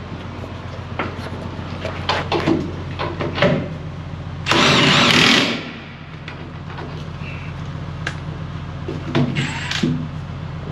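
Hands-on work under a semi-truck: scattered metal knocks and clanks over a steady low engine hum. A loud hiss lasting about a second comes near the middle and cuts off sharply.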